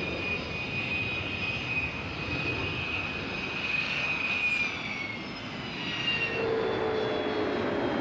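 Jet airliner's twin engines running as it passes low overhead: a steady jet roar with a high whine that dips slightly about five seconds in, joined by a lower hum about six seconds in.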